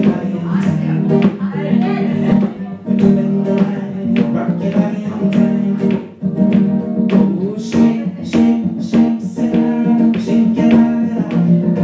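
A man singing live while strumming an acoustic guitar in a steady rhythm, with a brief break about halfway through.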